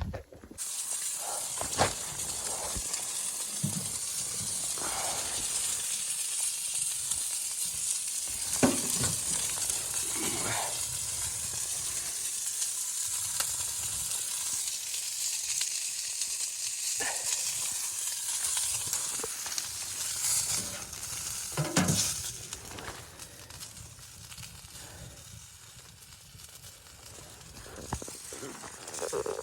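Food sizzling as it fries in a pan, a steady hiss with a few scattered clicks and knocks. It quietens somewhat near the end.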